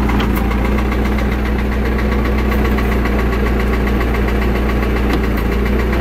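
John Deere 450 engine idling steadily, with no change in speed.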